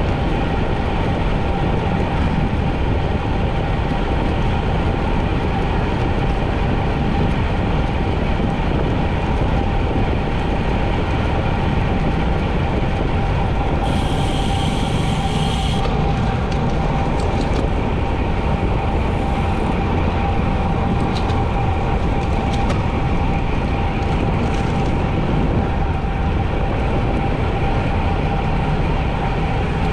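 Wind rushing over an action camera's microphone while riding a road bike at speed, a steady loud rumble with a constant whine running through it. A brief hiss rises over it about halfway through.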